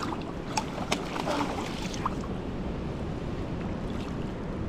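Stream water rushing steadily, with wind on the microphone. A few short sharp clicks come in the first two seconds.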